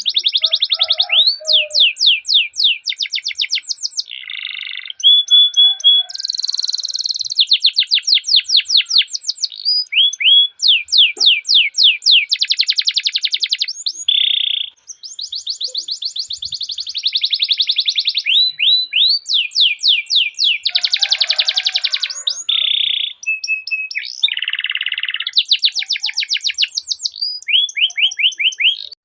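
Domestic canary singing a long rolling song: fast trills of quickly repeated downward-sweeping notes, switching to a new phrase every second or two, with short buzzy and steady whistled phrases in between.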